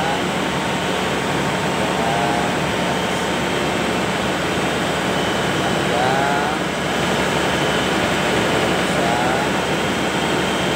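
Steady engine drone: a constant low hum under a loud, even hiss, with no change in speed or level.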